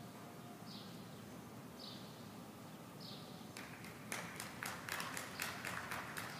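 A small bird gives a short, falling chirp about once a second, four times. From about halfway in, a run of irregular sharp knocks, a few a second, grows louder toward the end.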